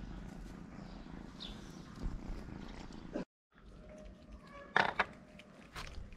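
A cat purring in a low, steady rumble. After a brief cut, kittens eat wet food from plastic bowls, with a few sharp clicks.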